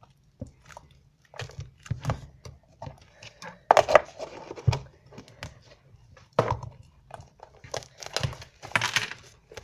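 Hardened homemade slime handled and pulled at by hand: irregular clicks and rustling, with louder crackly bursts about four seconds in, around six and a half seconds, and near the end.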